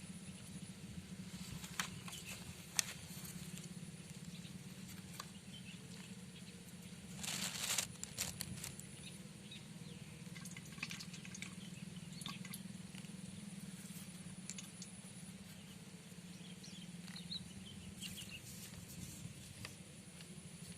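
Quiet outdoor ambience with a steady low hum, a few light clicks and taps, and a brief rustle about seven seconds in.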